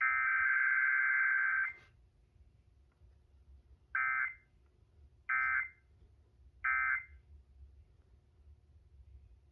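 Emergency Alert System weekly test tones from an FM radio: the last of the harsh, buzzing digital SAME header data bursts ends about two seconds in. After a pause come three short end-of-message bursts about 1.3 seconds apart, signalling that the test is over.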